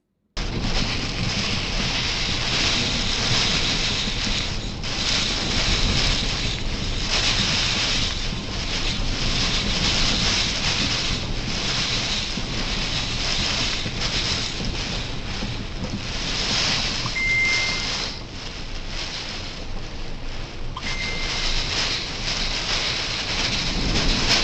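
Heavy rain and gusting wind of a thunderstorm, a dense rushing noise that swells and falls with the gusts, with wind buffeting the microphone. Two short high tones sound about two-thirds of the way in and again a few seconds later.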